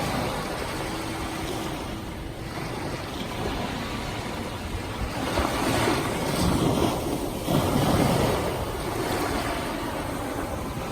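Ocean waves washing onto a sandy beach: a steady wash of surf, with a wave breaking and surging louder a little past halfway through.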